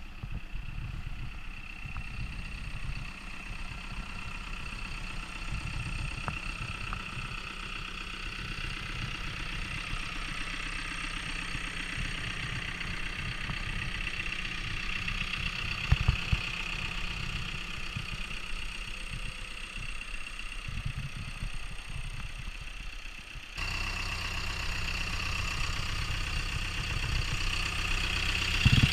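CAT 420E backhoe loader's diesel engine idling steadily, with a single sharp knock about halfway through; the engine sound becomes louder and stronger in the later part.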